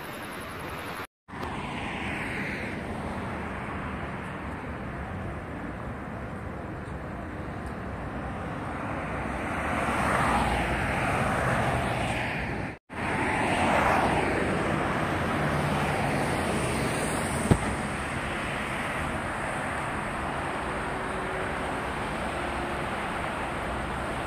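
Road traffic noise from cars passing on a multi-lane road. It is a steady rush that swells as vehicles go by, loudest around the middle, and drops out briefly twice.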